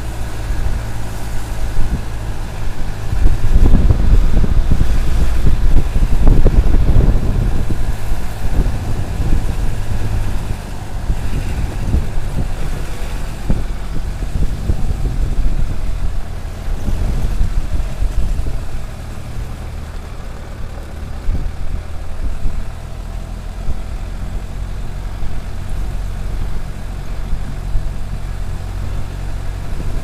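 An open-top jeep's engine running as it drives along a country road, heard from on board, with road rumble and jolts that are loudest a few seconds in.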